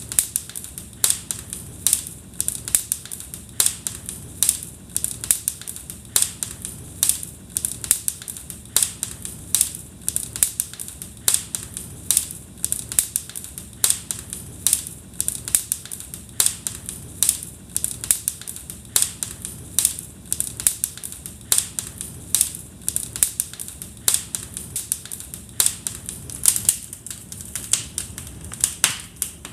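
Wood fire crackling in a fireplace: irregular sharp pops and snaps, several a second, over a low steady rush of the flames.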